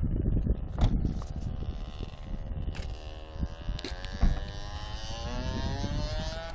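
BMW E36 sedan's engine pulling the car away, its pitch rising steadily over the last few seconds as it picks up speed, over a rumbling low noise. Two sharp clicks cut in, about a second in and about four seconds in.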